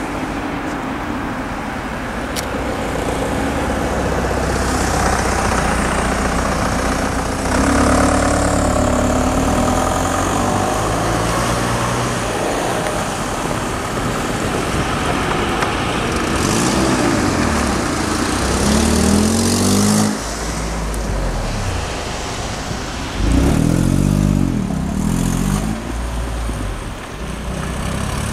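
Road traffic: several motor vehicles drive past close by, one after another. There are steady engine and tyre noise and sweeping passes, with the loudest passes about a third of the way in and again near 23 seconds.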